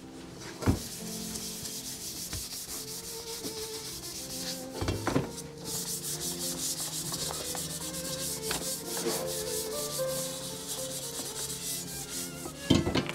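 Red abrasive scuff pad rubbed hard back and forth over a bare metal intercooler tube bend, a fast, scratchy hiss of strokes. There are a couple of sharp knocks as the tube is handled, near the start and about five seconds in.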